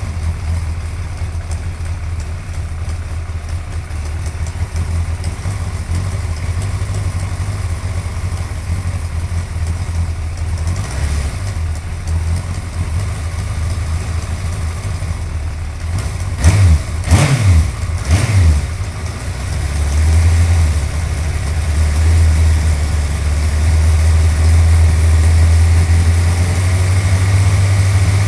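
Suzuki GSX-R1100 inline-four engine idling, with three quick throttle blips a little past halfway, then settling into a louder, steady idle.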